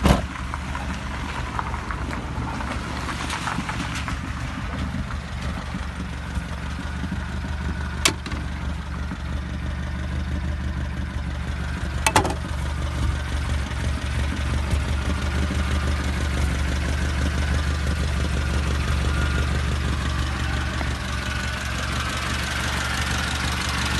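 Volkswagen Golf engine idling steadily with the tapping of its hydraulic valve lifters, a sign of lifters that are not holding oil pressure. A few single sharp clicks stand out, about a third and halfway through.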